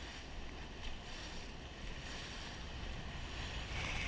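Jon boat under way on the river: a steady low rumble with wind and water noise.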